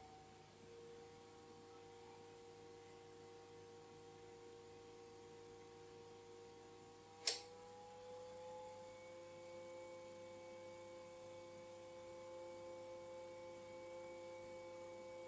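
Enermax LIQMAX 120S all-in-one liquid cooler pump running, a faint whine of a few steady tones that edge up in pitch as its supply voltage is turned up from about 6.7 to 8 volts. A single sharp click about seven seconds in.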